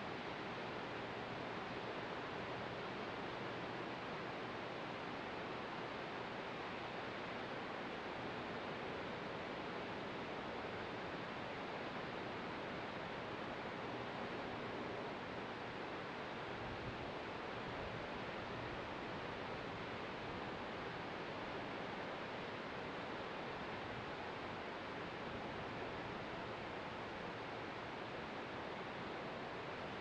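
Distant ocean surf: a steady, even wash of sound with no single wave break standing out.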